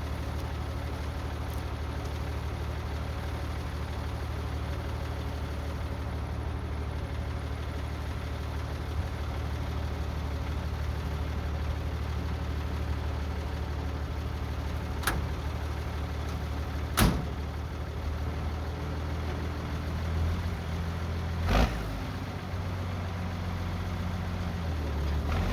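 An M35A2 deuce-and-a-half's turbocharged multifuel diesel engine idling steadily. There are two sharp knocks a little past halfway and another soon after. The engine note rises and falls in the last few seconds.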